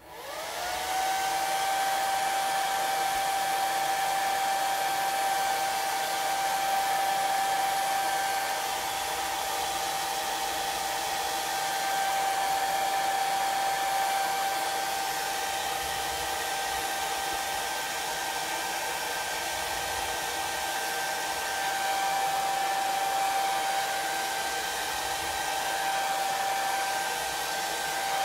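Handheld hair dryer switched on: its motor whine rises within the first second to a steady pitch, then it runs steadily with a rushing air noise, drying freshly applied chalk paste.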